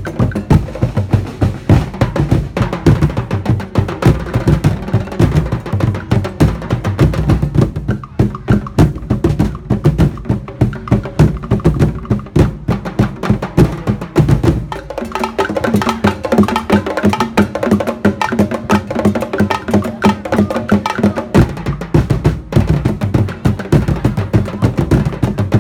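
Fast drum music: deep drums and sharp wooden knocks beating a quick, driving rhythm. About halfway through the deep drums thin out and steady pitched tones come in over the percussion.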